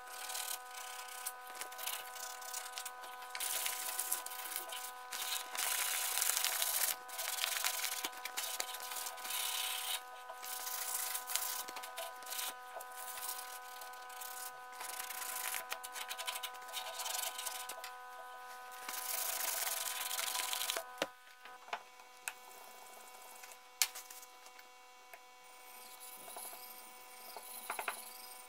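Wooden cleaver handle being hand-sanded, in repeated rubbing strokes. A steady hum of several held tones runs underneath and fades about two-thirds of the way through.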